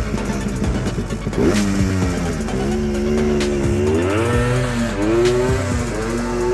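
Yamaha Blaster 200's single-cylinder two-stroke engine revving up and down while riding, its pitch rising about four seconds in, with background music playing over it.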